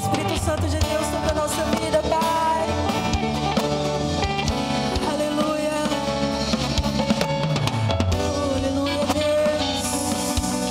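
Worship band music played live: a drum kit keeping a steady beat under sustained chords, with a voice singing a wavering melody line and a cymbal wash near the end.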